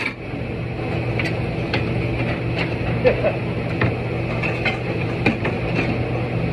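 Steady machine hum with scattered, irregular light clicks and knocks over it.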